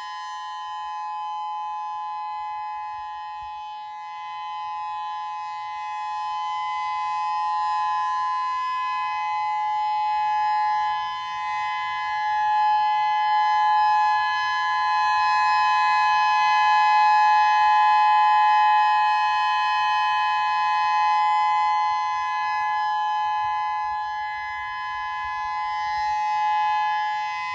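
Outdoor early-warning siren sounding a steady two-pitch tone during a siren system test, swelling and fading in loudness over several seconds.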